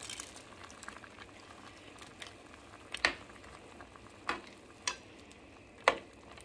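Chicken noodle soup bubbling at a boil in a metal pot while egg noodles are stirred in with a metal spoon, which clicks against the pot four times, the last near the end.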